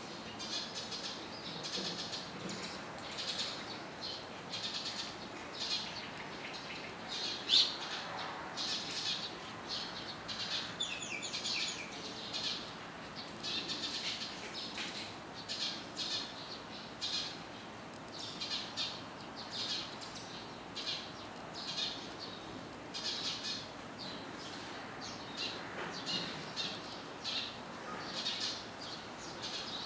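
Small birds chirping: short, high calls repeating every second or so, with one louder call about seven and a half seconds in.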